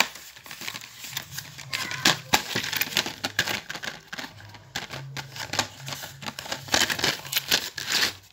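A cardboard box of felt-tip pens and its plastic wrapping being handled: crinkling with many quick clicks and taps.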